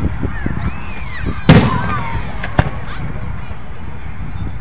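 Aerial fireworks shells bursting: one sharp bang about a second and a half in, the loudest sound, then a smaller crack about a second later, over a steady low rumble.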